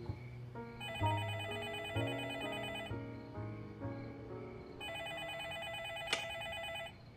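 Landline telephone ringing twice, each trilling ring about two seconds long, over soft music with plucked notes. A sharp click comes near the end of the second ring.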